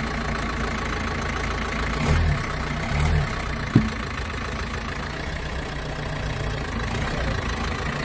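Car engine idling steadily as the car creeps onto a plastic tube, with two brief low swells in the engine sound and a single sharp click about four seconds in.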